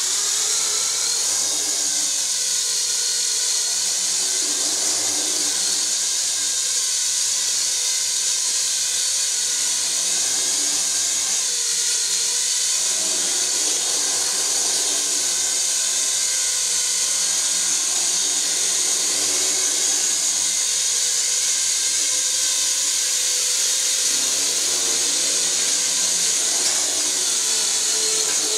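Motors and propellers of a WLtoys V262 quadcopter running in flight: a steady, high-pitched electric whine and hiss, its pitch wavering as the motors speed up and slow down, rising as it spools up near the start.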